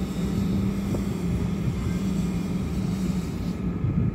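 Machinery of the moored Hurtigruten ship Maud running, a steady low hum with a constant drone over a rumbling bed.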